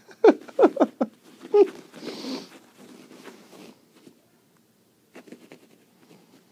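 A pet prairie dog giving a quick run of four short calls, each falling in pitch, and one more a moment later, followed by a brief rustle and a few faint scratches.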